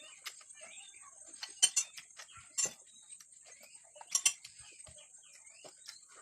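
Cutlery clinking against a plate in a few sharp taps, over a steady high-pitched hiss and faint chirping.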